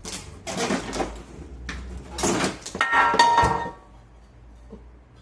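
New metal cookware being handled and unpacked: rustling and clattering, with a clank that rings briefly about three seconds in.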